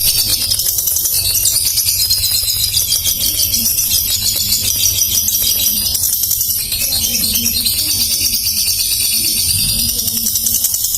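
Lovebird singing a continuous, rapid, high-pitched chatter.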